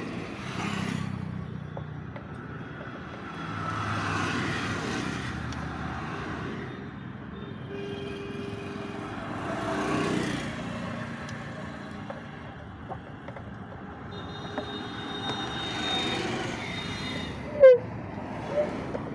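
Road traffic passing, rising and falling in waves. Near the end come two short, sharp squeaks that fall in pitch.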